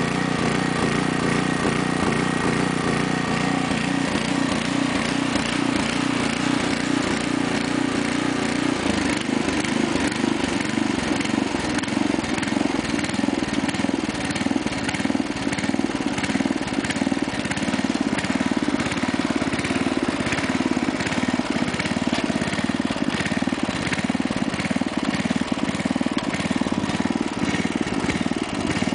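The 5 hp Briggs & Stratton single-cylinder engine of a 1991 Sears Craftsman tiller running steadily, still warming up after a cold start. Its note shifts about nine seconds in.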